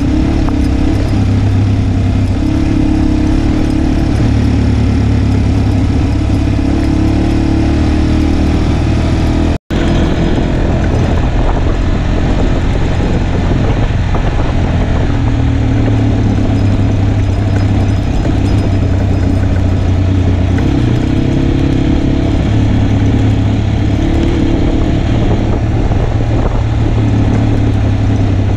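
Onboard sound of an Italika dual-sport motorcycle's single-cylinder engine running as it rides a gravel road, its note stepping up and down with the throttle. The sound cuts out for an instant about ten seconds in.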